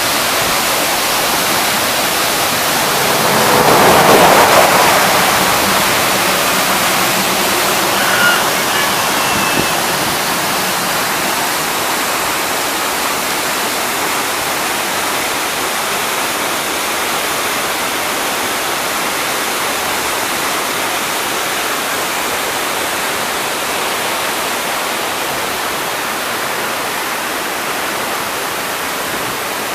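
Waterfall rushing steadily, with a louder swell that rises and fades about four seconds in.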